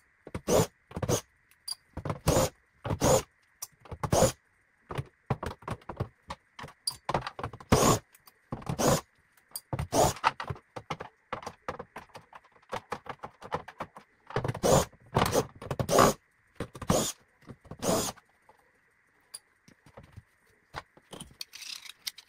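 Irregular metal clinks and clatters: screws being taken out of a TV's plastic back cover with a screwdriver and dropped into a small metal parts bowl. The clinks come singly and in quick clusters.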